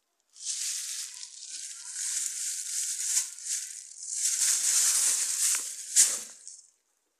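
Thin clear plastic bag rustling and crinkling as a hand grips and crumples it, in two long stretches with a sharp crackle about six seconds in.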